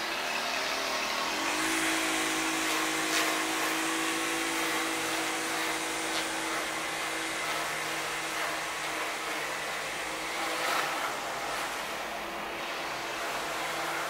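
A motor engine running steadily. Its pitch rises about a second and a half in, then holds level.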